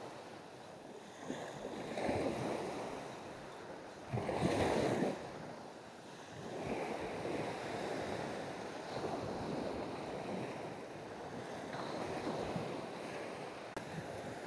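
Small waves breaking and washing up a sandy beach in surges, the loudest about four seconds in, then a steadier wash of foam over the sand.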